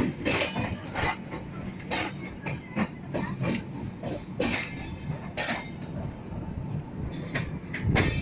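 Passenger train running on the rails: a steady rumble with irregular, sharp clacks of the wheels over rail joints.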